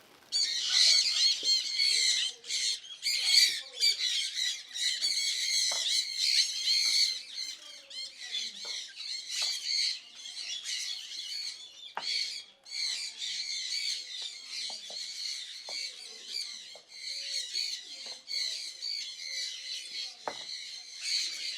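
Many birds chattering and squawking together, a dense, high-pitched, continuous din, with a few faint knocks.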